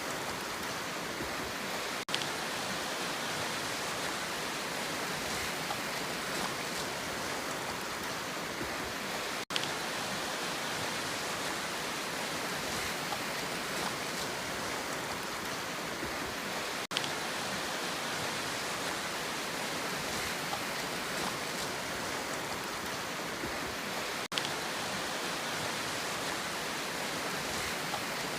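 Steady, even rushing of sea water with no distinct wave swells, broken by a very short dropout about every seven seconds.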